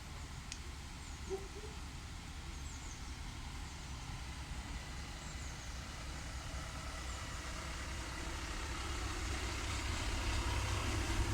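Steady rain falling outdoors, with a low rumble underneath and a few faint high bird chirps; the rain grows gradually louder toward the end.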